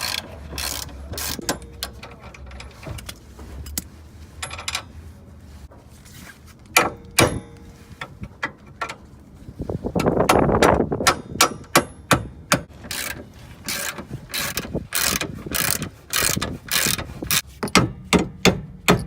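Hand ratchet wrench clicking in strokes while working a bolt loose under a car, with metallic clinks; the clicks come sparsely at first and in quick runs of several a second from about halfway through.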